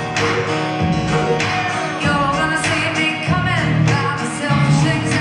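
Live country band performing, with a woman singing lead over acoustic guitars and drums.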